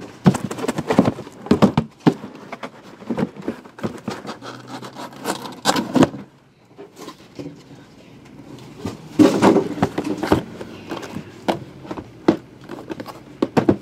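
Shrink-wrapped cardboard trading-card boxes being handled: knocking, sliding and scraping against each other and the cardboard case as they are lifted out and stacked. The handling goes quiet for a couple of seconds midway, then picks up with its loudest knocks.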